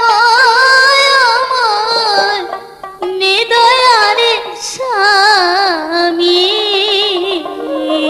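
A high voice singing a slow, wavering melody with heavy vibrato over musical accompaniment, breaking off briefly about three seconds in.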